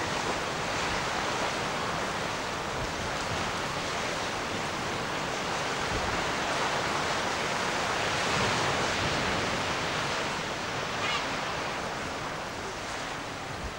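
Surf washing on a shore, a steady rush of waves that swells about eight seconds in and then eases off.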